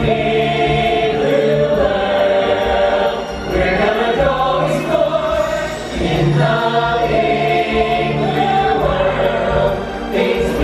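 A stage-musical number: a group of voices singing together over a full orchestral backing track, played through a theatre's sound system.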